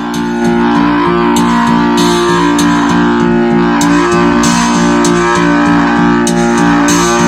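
Music with plucked guitar over a steady, fast repeating beat, played loudly through the iBall Studio L8 tower speaker in a sound test.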